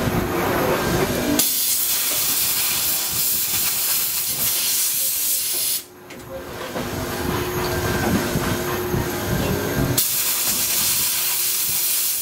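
Jeweller's steam cleaner blasting jets of steam onto a silver piece held in tweezers: two hissing blasts of about four seconds each, the first starting about a second in and the second about ten seconds in.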